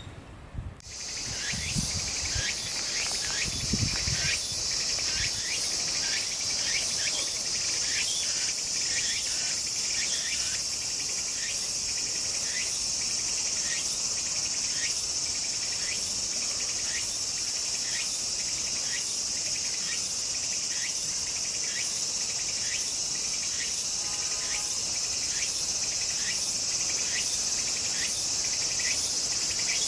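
Chorus of insects singing: a steady high-pitched shrill with chirps repeating about twice a second over it. It starts abruptly about a second in.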